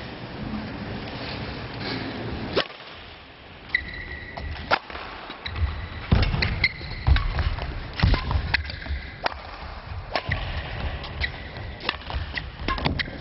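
A table tennis rally: the ball clicks sharply off rackets and table in quick, irregular succession, starting about a quarter of the way in, with a steady hall murmur before it.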